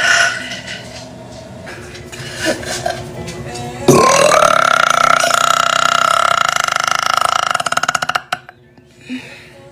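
A young woman's long, drawn-out voiced burp about four seconds in: it slides sharply up in pitch, holds one steady pitch for about four seconds, then breaks into a rattle and stops.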